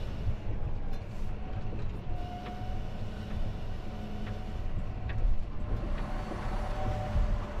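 John Deere tractor running and driving, heard from inside its cab: a steady low engine rumble with a faint whine and a couple of light knocks.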